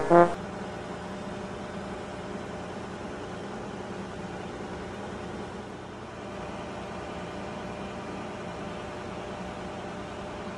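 A steady machinery hum with several faint steady tones, the constant background of running engine-room machinery and ventilation; a brass music clip cuts off just as it begins.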